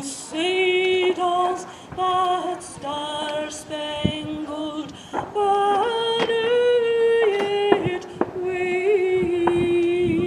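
One voice singing a slow song unaccompanied, with long held notes and vibrato. Sharp clicks or knocks are heard now and then, one louder near the middle.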